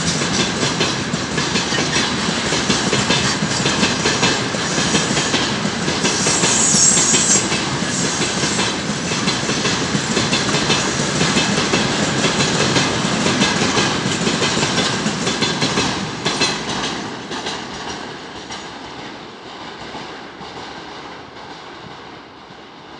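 Loaded tank cars of a long freight train rolling past, their wheels clattering over the rail joints, with a brief high wheel squeal about seven seconds in. From about sixteen seconds the noise fades steadily as the end of the train passes and draws away.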